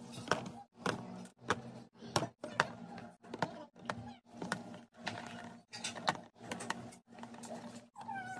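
Small plastic bottles and tubes being set into a plastic storage bin: a run of sharp clicks and knocks, about two a second, plastic tapping on plastic.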